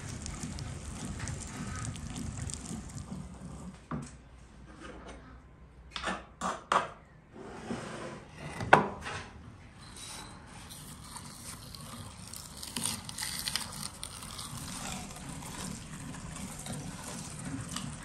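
Hand-cranked metal meat grinder mincing, with a few sharp knocks in the middle as the grinder and bowls are handled between batches. After that the grinder runs steadily again, now mincing raw onion.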